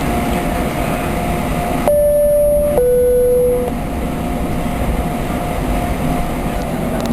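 Steady airliner cabin noise on the flight deck while taxiing, with a constant high whine. About two seconds in, a two-tone chime sounds: a higher note, then a lower one, each about a second long. This is the crew call marking the cabin reported secure.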